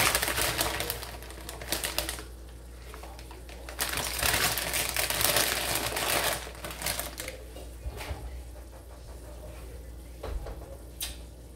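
Plastic tortilla-chip bag crinkling and crackling as it is handled, in two spells of rapid crackle, the second a few seconds in, then quieter with a few odd clicks near the end.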